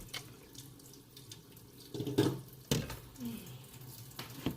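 Kitchen clatter from utensils and dishes: scattered clicks and knocks, the loudest a little after two seconds in and again just before three seconds.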